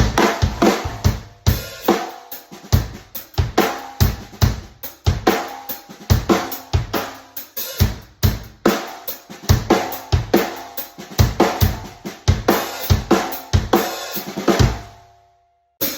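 Acoustic drum kit playing a steady groove of bass drum, snare and cymbals, heard with the reverberation of an upstairs hallway. The playing stops about a second before the end and rings out.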